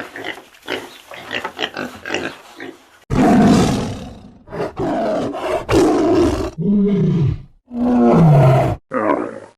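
Animal calls edited one after another: rapid short grunts for about three seconds, then a sudden loud roar and several shorter deep calls, two of them sliding down in pitch.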